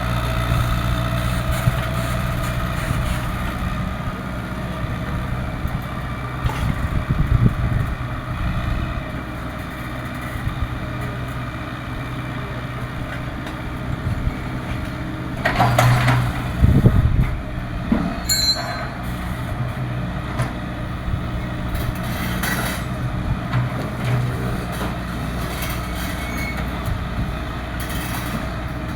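Hydraulic excavator's diesel engine running steadily under work, with a burst of loud knocking and scraping about halfway through.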